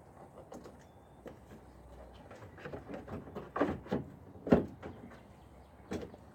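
A scatter of light clicks, knocks and scrapes from an LED headlight bulb and its headlight housing being handled and fitted. The loudest knock comes about four and a half seconds in.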